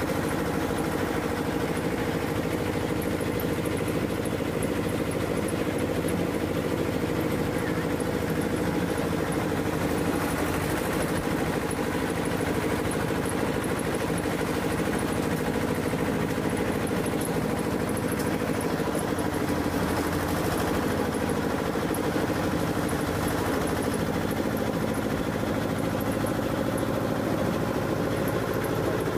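An engine running steadily at an even idle, a continuous mechanical drone that holds the same pitch throughout.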